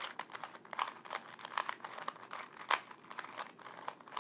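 Rubik's Cube being turned by hand: quick, irregular plastic clicks and clacks of the layers rotating, several a second.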